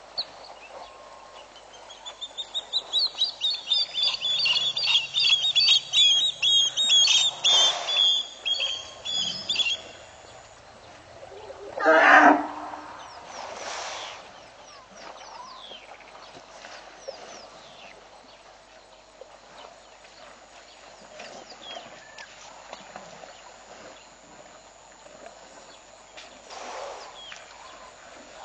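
A bird calling: a long, loud run of rapid repeated high notes lasting about eight seconds, followed a few seconds later by one loud short call.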